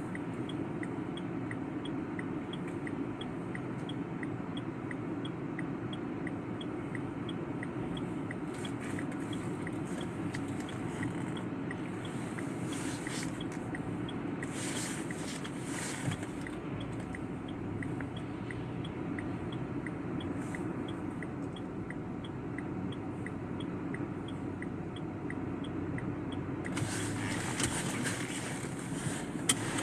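Steady rumbling road noise of a moving vehicle heard from inside, with a faint regular ticking about twice a second and a few brief hissing swishes.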